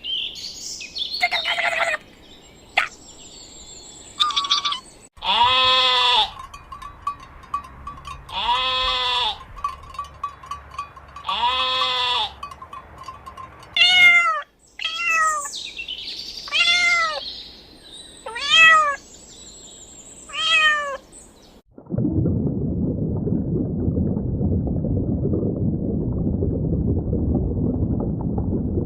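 A run of animal calls. Short chirps come first, then three long bleat-like calls about three seconds apart, then five shorter calls. From about 22 seconds a steady low rushing noise takes over.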